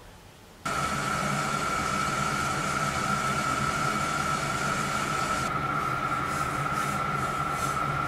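Kettle at the boil, steam rushing from its spout as a steady hiss with a high steady tone. It starts abruptly about half a second in, and the upper hiss thins out about two-thirds of the way through.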